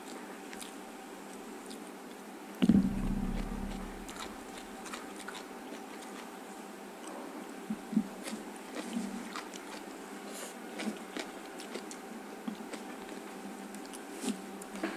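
Close-miked eating: chewing and biting of rice and leafy greens, with short crisp crunches and clicks scattered through the second half. A loud low thump about three seconds in.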